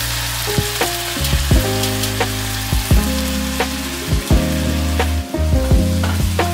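Squid and mushrooms sizzling in a frying pan on a gas stove, the squid and its juices just tipped in, with clicks and pops of the frying and the stirring. Background music chords play underneath.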